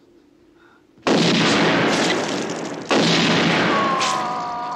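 Two long, loud bursts of film gunfire, starting about a second in and again about three seconds in, each echoing out. Near the end a drawn-out pitched sound falls slowly in pitch.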